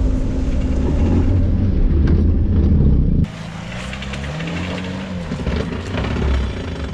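Suzuki Vitara 4x4's engine revving hard under load, its pitch rising and falling. About three seconds in the sound drops suddenly to a quieter engine note that climbs and falls once more.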